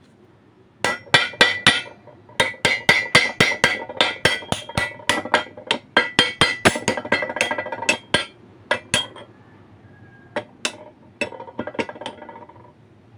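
Hammer striking a steel pipe seated in the hole of a steel plate, with a metallic ring on each blow. A rapid run of blows, about four a second, lasts some eight seconds, then a few scattered blows follow.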